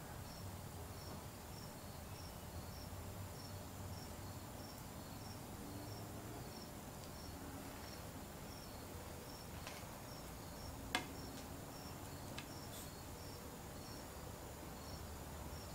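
Faint cricket chirping steadily, about three chirps a second, over a low room hum, with a few light clicks of small parts being handled in the second half.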